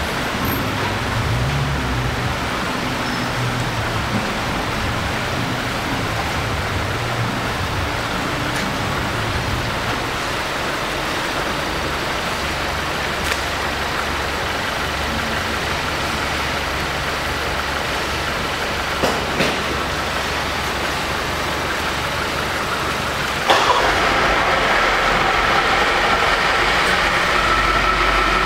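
Volkswagen Jetta GLI's engine idling steadily. A couple of faint clicks come about 19 seconds in. About 23 seconds in, the sound jumps louder and a steady high tone joins it.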